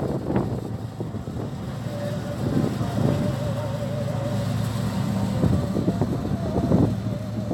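Tractor engine running steadily. From about two seconds in, a higher wavering whine runs over it, with a few short knocks.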